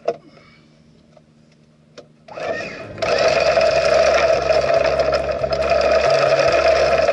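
Newly fitted electric anchor windlass starting up about two seconds in and running steadily, its motor whining as it turns the chain gypsy, with light clicking over it.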